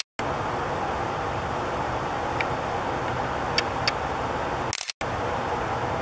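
Steady outdoor background noise, an even hiss and rumble, with a few faint clicks in the middle. It cuts out abruptly for a moment at the start and again just before the five-second mark, where recordings are spliced together.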